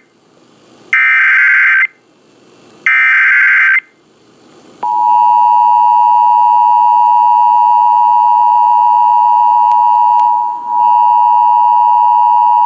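Emergency Alert System header: the last two of three one-second bursts of warbling digital data, a second apart. About five seconds in, the steady two-tone EAS attention signal starts; it dips briefly near ten seconds and keeps sounding.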